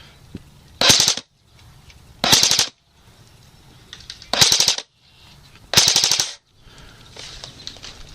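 Airsoft gun firing four short full-auto bursts of rapid shots, each about half a second long and evenly spread over several seconds.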